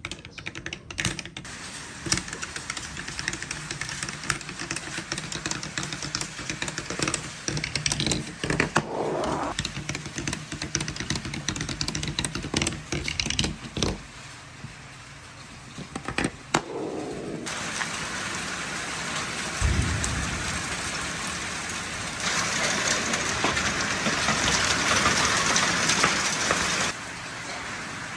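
Marbles rolling down a wooden marble run: fast irregular clattering and ticking as they drop and knock along the wooden track, changing partway through to a steady rolling rush, louder for a few seconds near the end.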